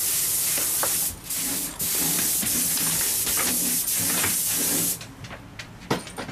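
Compressed-air spray gun hissing in three long blasts with two short breaks, then cutting off; a sharp knock near the end.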